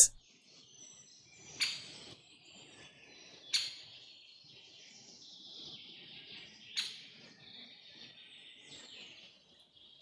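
Recorded nature soundscape of birds chirping softly, with three short, louder chirps standing out about one and a half, three and a half and seven seconds in.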